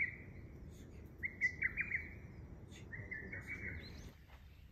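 A bird calling three times, each call a short run of quick notes at one steady pitch, about a second and a half apart.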